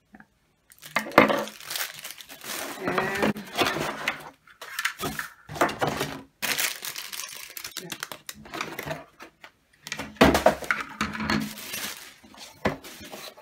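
Packaging being handled: plastic wrapping crinkling and cardboard rustling in several bursts with short pauses, with a few light knocks.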